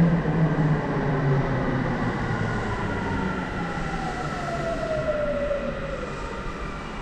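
Namboku Line subway train braking, its motor whine sliding steadily down in pitch as it slows, over a low rumble that fades away.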